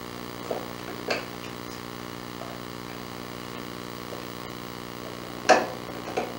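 Small wooden drawers knocking and rattling as a parrot tugs at them with its beak, a few sharp knocks with the loudest about five and a half seconds in, over a steady electrical hum.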